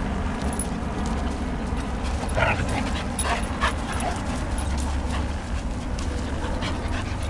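Two young dogs, a Rhodesian Ridgeback and a Presa Canario, play-fighting, with several short vocal sounds from the dogs, the loudest about two and a half seconds in, over a steady low rumble.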